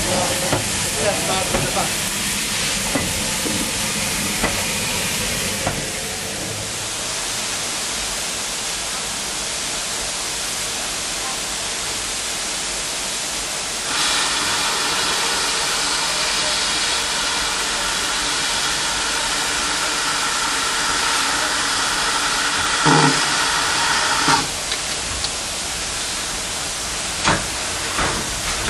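Steam locomotives at close range. From about halfway a loud steady hiss of escaping steam, with a whistling ring in it, cuts off abruptly a few seconds before the end. A few short metallic knocks follow.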